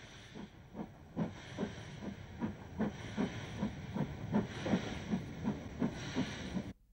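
Steam tank locomotive working a train, its exhaust chuffing evenly at about two and a half beats a second over a hiss of steam. It grows louder after about a second and cuts off just before the end.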